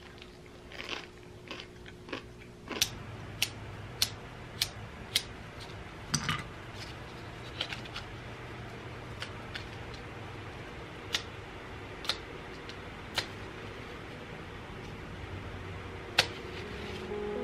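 A lighter being flicked repeatedly: a string of sharp single clicks, first five about half a second apart, then more scattered ones, over a faint steady low hum.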